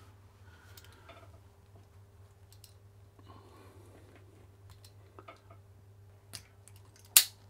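Faint clicks of hand tools on electrical cable as wire strippers work the insulation, then one sharp snip of the cutters about seven seconds in, the loudest sound.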